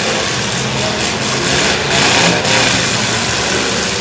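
Demolition derby truck engines running and revving together, with a louder surge of noise about two seconds in.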